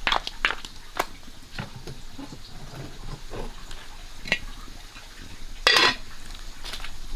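Cooking sounds: scattered clinks and scrapes of a utensil against a pot or pan, with one louder scrape about six seconds in.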